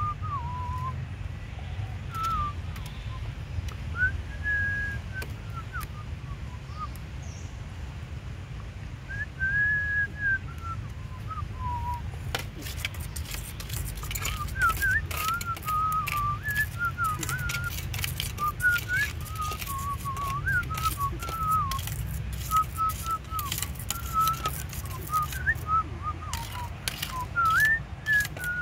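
Whistling: a few long, wavering notes at first, then from about halfway a run of quick short notes. Scattered sharp clicks and a steady low rumble lie underneath.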